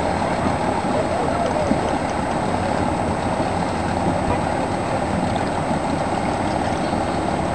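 Outboard motors of a fleet of small aluminum fishing boats running at speed together, blending into one steady drone.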